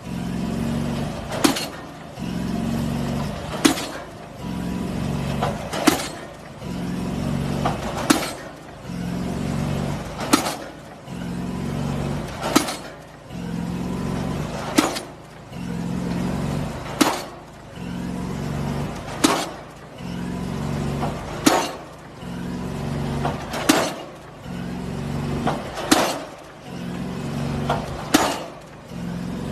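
Diesel pile hammer driving a precast concrete pile: a sharp, evenly spaced blow about every two seconds, with a steady engine hum between the blows.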